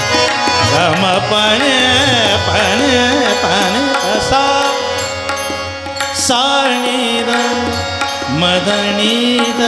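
Devotional Marathi bhajan: a male voice sings a wordless, gliding melodic line over harmonium, with tabla beneath.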